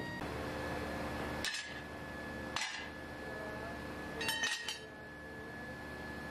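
Metal pieces clinking against each other with a bright ringing tone: two single clinks, then a quick cluster of three or four a little later, over a steady workshop machine hum.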